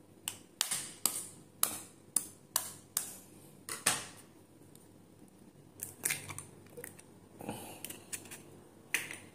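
An egg tapped again and again against the rim of a ceramic bowl, a run of sharp clicks about two a second, then the shell cracking and being broken open over the bowl.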